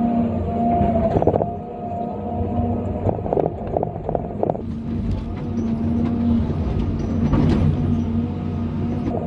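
John Deere 350D excavator heard from inside its cab: the diesel engine runs steadily under load with a whine from the hydraulics that shifts in pitch. Clusters of knocks and clatter of rock as the bucket dumps and digs pit run come about a second in, again from three to four and a half seconds, and once more around seven and a half seconds.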